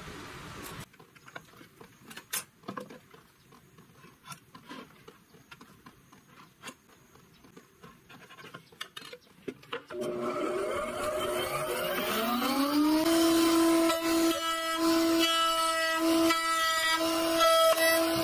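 A few light knocks and clicks, then a drill press motor starts about ten seconds in: its whine rises in pitch for a few seconds as it spins up to a steady loud hum. Near the end the whine dips again and again as a large Forstner bit bores into a softwood board.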